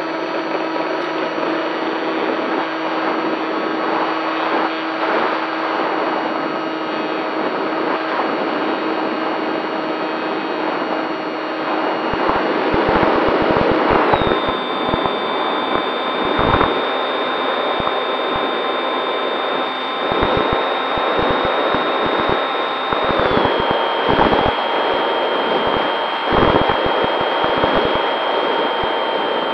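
Onboard sound of a Bixler 3 foam RC plane's electric motor and pusher propeller: a steady high whine at full throttle for the takeoff and climb, stepping down in pitch twice as the throttle is eased back. Wind buffets the microphone once the plane is airborne.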